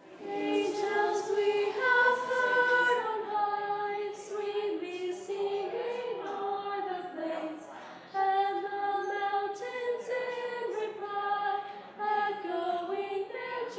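Small group of teenage girls singing a Christmas carol together a cappella, in phrases with brief breaths about eight and twelve seconds in.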